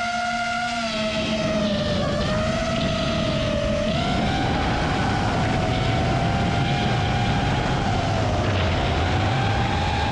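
FPV quadcopter drone's motors and propellers whining steadily, the pitch wavering with throttle: it dips about two seconds in and again near the end, then climbs. A low rushing noise runs underneath.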